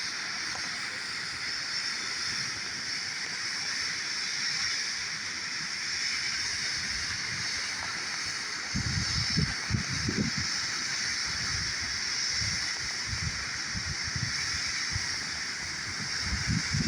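Waterfall rushing steadily. From about halfway through, irregular low rumbling gusts join it.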